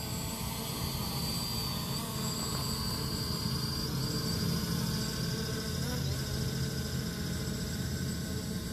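SG906 Pro quadcopter drone's motors and propellers buzzing steadily with a high whine while it hovers, the pitch shifting briefly about six seconds in.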